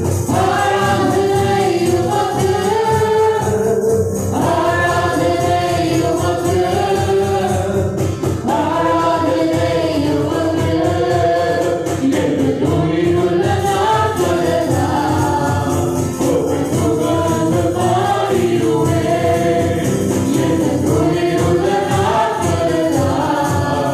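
Live worship song: a woman's lead voice with other singers joining, over acoustic guitar and keyboard with a steady beat.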